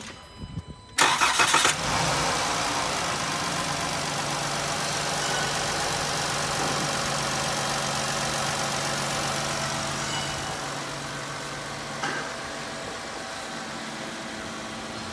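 2015 Ram Promaster 1500's 3.6-litre Pentastar V6 is cranked by the starter about a second in and catches within a second, then idles steadily. The idle eases down a little about ten seconds in.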